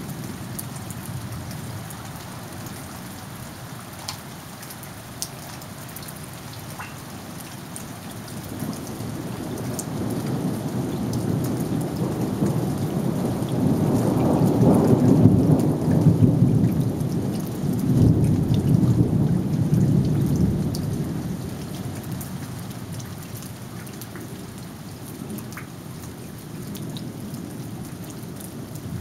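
Steady rain falling with scattered drop ticks, and a long roll of thunder that swells in about a quarter of the way through, peaks past the middle and fades away near the end.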